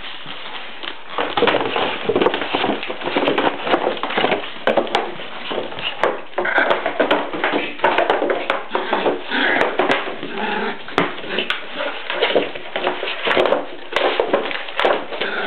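Pomeranians tearing at a cardboard carton on a tile floor: constant cardboard rustling, scraping and crackling, with the dogs' whimpers.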